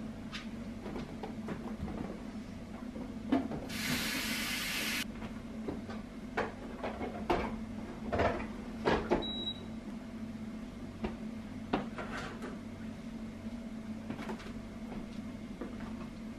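Household handling sounds: scattered clicks and knocks of objects and cupboards being handled over a steady appliance hum, with a hiss of about a second near the start and a short high beep about nine seconds in.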